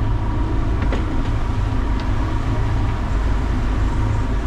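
Twin Yamaha outboard motors running under way, a steady low drone mixed with hull and water noise. The motors are being run to burn off carbon deposits.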